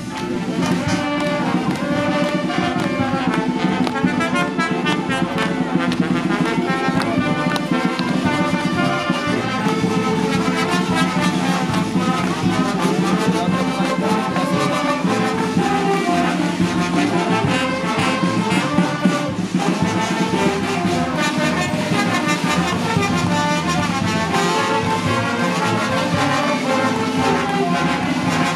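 A brass band playing, with trumpets and trombones.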